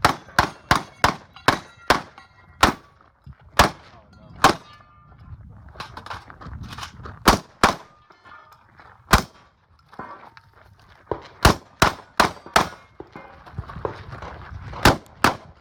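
Shotgun shots fired in quick strings with pauses between them, mixed with the clang and ring of steel targets being hit. About twenty sharp reports in all, in runs near the start and again in the second half.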